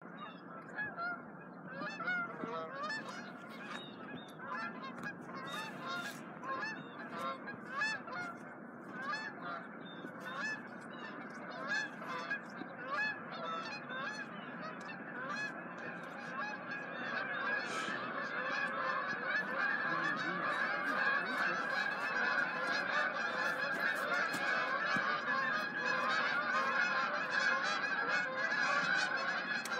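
A flock of Canada geese honking in flight, many short calls overlapping. The calls grow denser and louder about halfway through as more of the flock comes over.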